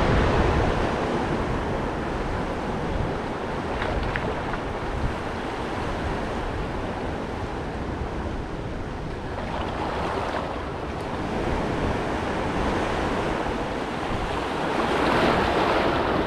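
Wind rushing over the microphone along with the wash of water, swelling in gusts about ten seconds in and again near the end.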